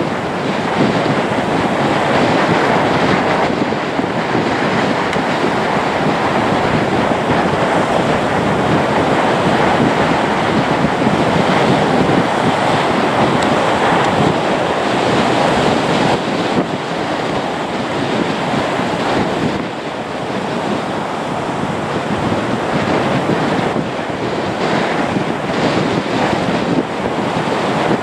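Turboprop engines and propellers of a Lockheed Martin C-130J Super Hercules running as the aircraft taxis: a steady, loud roar, mixed with wind on the microphone.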